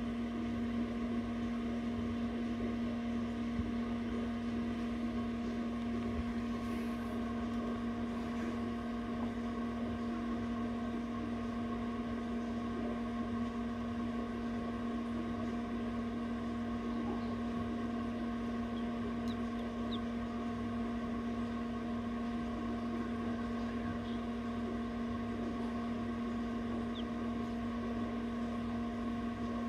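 Egg incubator's fan running with a steady, unchanging hum.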